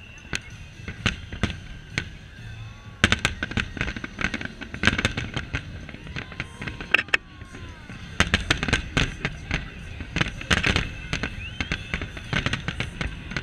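A large aerial fireworks display, with shells bursting in rapid succession as many sharp bangs and cracks. It is sparser at first and becomes a dense barrage from about three seconds in.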